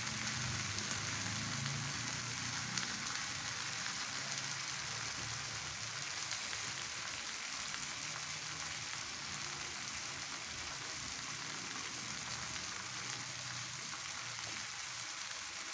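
Pomfret grilling, a steady sizzle with an occasional faint crackle as the fish cooks and darkens.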